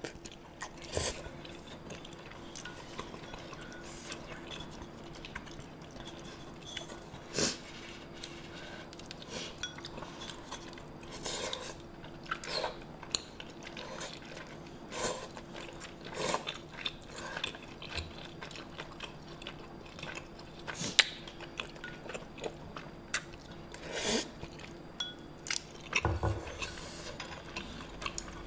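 Eating sounds: intermittent chewing and slurping of spicy rice cakes and ramen noodles, with chopsticks clicking against bowls in scattered short taps, over a faint steady hum.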